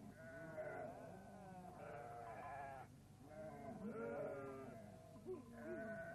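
A small flock of sheep bleating faintly: many wavering bleats, one overlapping the next.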